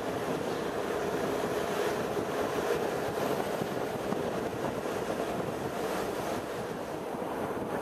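Steady wind rush on the microphone with rolling road noise from the moving camera.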